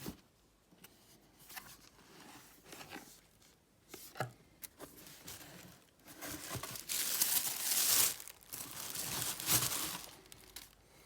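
Shoe box packaging being opened by hand: paper crinkling and tearing, with scattered rustles and small knocks at first, then a louder, continuous stretch of crinkling and tearing in the second half that dies down near the end.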